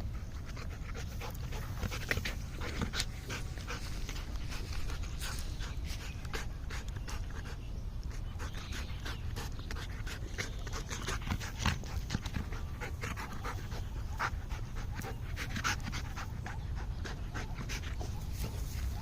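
Golden retriever panting, with many short sharp clicks throughout over a steady low rumble.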